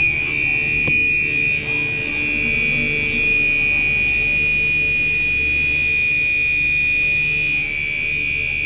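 Gentex Commander 3 fire alarm horn sounding in continuous mode: one steady, high-pitched electronic tone without a break, with a low hum underneath.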